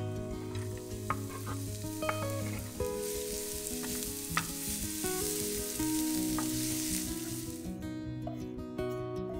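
Chopped shallot sizzling in hot olive oil in a nonstick frying pan as a wooden spoon stirs it, with a few light knocks. The sizzle stops about eight seconds in.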